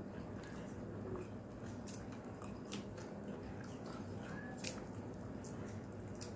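A person chewing shrimp, with faint wet mouth sounds and a few sharp little clicks, over a steady low hum.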